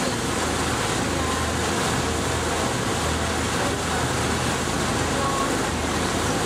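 Boat engine running steadily, with water rushing past the hull, heard from on board the boat.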